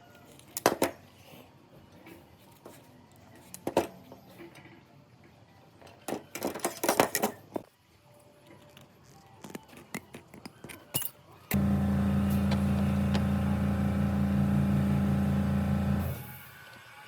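Several sharp clicks and knocks of parts being handled, then an electric motor switched on, running with a steady hum for about four and a half seconds, and switched off abruptly.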